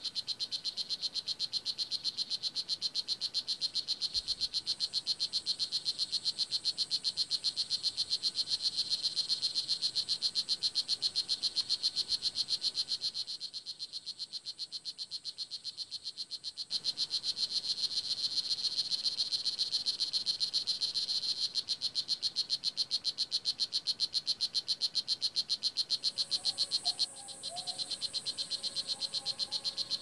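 Blue jeans poison dart frog (Oophaga pumilio) calling: a long, fast train of high, evenly spaced chirping pulses, stopping for about three seconds midway and then resuming.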